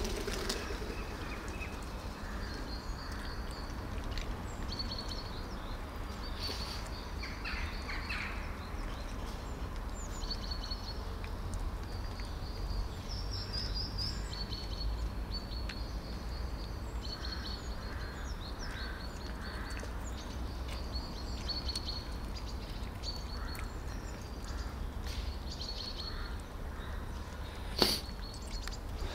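Small birds chirping, short high chirps repeating again and again, over a steady low outdoor rumble. One sharp click near the end.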